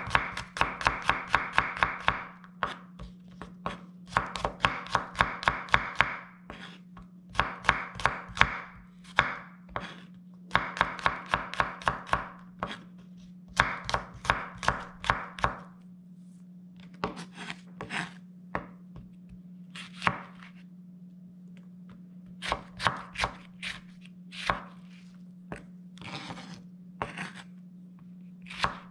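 Chef's knife chopping garlic cloves on a wooden cutting board. Quick runs of knife strikes, each a couple of seconds long with short pauses between, give way to slower, scattered cuts in the second half, with chili peppers being cut near the end. A steady low hum runs underneath.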